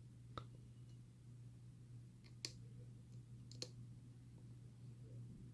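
A few faint, sharp clicks spread over several seconds, made by a lock pick and tension wrench working the pins of a pin-tumbler challenge lock during single-pin picking.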